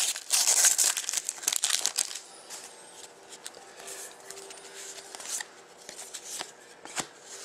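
Plastic foil wrapper of a Panini Contenders hockey card pack crinkling and tearing as it is peeled open, loudest in the first two seconds. Then comes quieter rustling with light clicks as the cards are handled.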